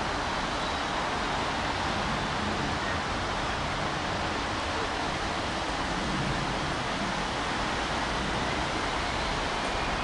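A steady hiss, with the low rumble of a diesel freight locomotive approaching in the distance underneath it.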